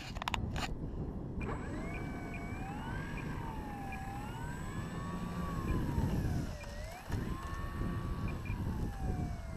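Emergency vehicle siren wailing, its pitch rising and falling slowly, starting about a second and a half in, over a steady low rumble. A few knocks come right at the start.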